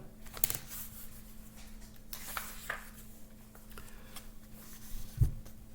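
Paper book pages being handled and turned: light rustles and small clicks, with a soft thump about five seconds in.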